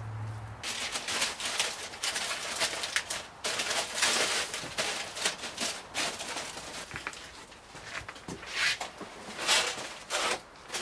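Aluminium foil crinkling and rustling in irregular bursts as it is pressed down and tucked around a roasting pan.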